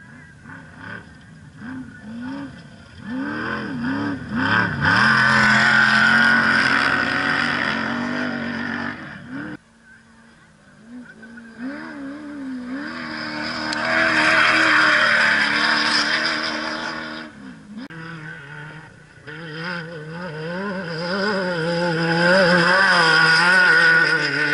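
Off-road Class 10 race car engine revving hard, its pitch rising and falling with the throttle over rough ground, swelling to full loudness three times as the car comes close: about a quarter of the way in, in the middle and near the end.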